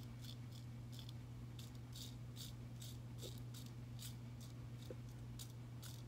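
Faint, irregular small clicks, about three a second, over a steady low hum.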